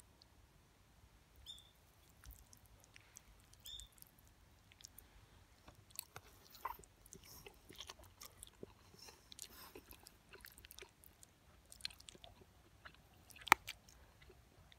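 Quiet eating sounds: a fork clicking and scraping in an aluminium mess tin of spaghetti, with chewing. One sharper clink near the end.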